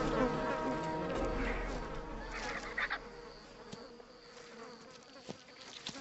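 Flies buzzing around a carcass, a dense insect hum that drops in level about halfway through.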